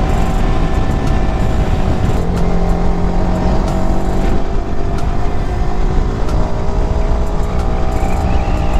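Yamaha R15 V4's 155 cc single-cylinder engine under way, with heavy wind rumble on the microphone. The engine note drops as the bike slows, then climbs again as the rider accelerates.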